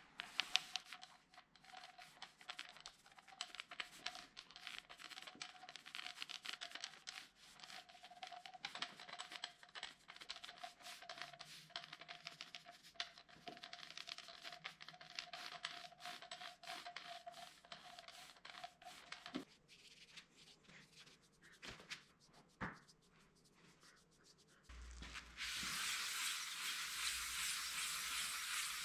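Foam paint roller spreading a coat of wet epoxy resin over a wooden slab, a fast sticky crackle as the roller pulls on the tacky resin. About 25 seconds in, after a pause, it changes to hand sanding with a sanding block on the wood, a steady rasping hiss that is the loudest part.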